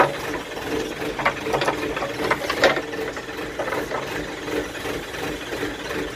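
JCB backhoe loader's diesel engine running steadily while the backhoe arm is worked by its levers, with irregular sharp metallic clicks and clanks from the arm and controls, the loudest a little under three seconds in.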